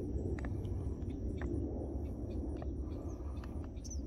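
Outdoor ambience: a steady low rumble on the microphone under a thin, steady high insect drone, with a few short sharp clicks.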